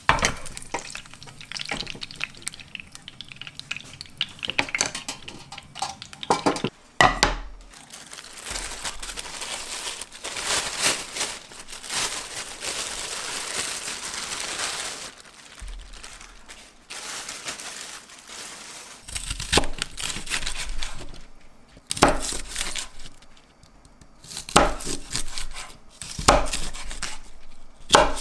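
Kitchen handling sounds: light clinks of a metal tray and utensils, a sharp knock, and a long stretch of rustling. Near the end, a chef's knife cuts through bok choy onto a wooden cutting board, single cuts about two seconds apart.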